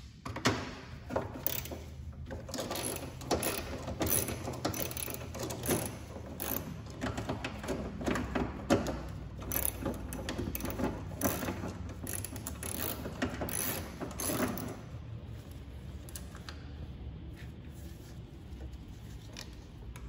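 Hand socket ratchet clicking in quick runs as it turns out the fasteners holding a trunk latch actuator to the trunk lid. The clicking stops about fifteen seconds in.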